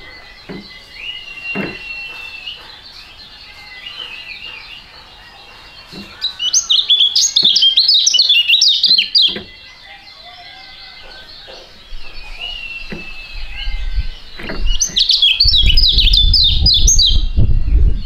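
Caged kecial (white-eye) singing: thin scattered chirps, then two loud bursts of fast, twittering song, one starting about six seconds in and lasting some three seconds, the other starting about fifteen seconds in. A low rumble runs under the second burst.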